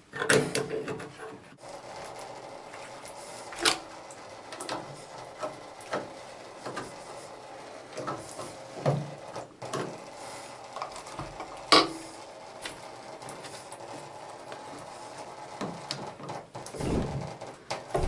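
Clicks, taps and scrapes of a chrome wall-mounted mixer tap and its metal fittings being handled and fitted, with two sharper metallic knocks about four and twelve seconds in.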